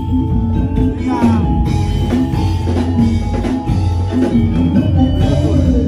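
Loud music with a drum beat and a melody line over it, played without a break.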